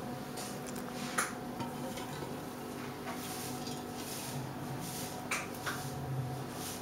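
Handling noise from a Bengal kitten being held and stroked: light rustling and a few sharp clicks, about a second in and twice more near the end, over a steady low hum.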